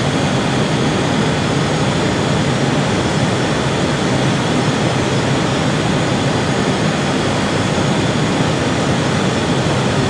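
Steady cockpit noise of a jet airliner on approach: airflow and engine noise, even and unchanging.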